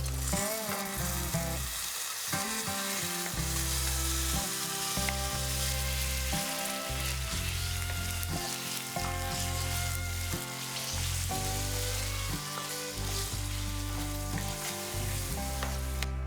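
Marinated chicken sizzling and frying in hot oil in a pan, a steady hiss that cuts off at the end, over background music.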